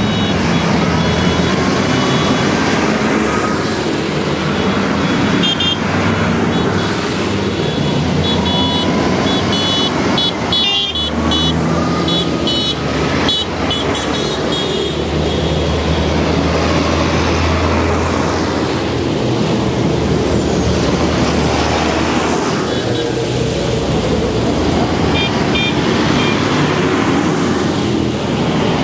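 Tractor engines running one after another as tractors move off, the low engine sound rising and falling as different machines take over, with short horn-like toots at a few points.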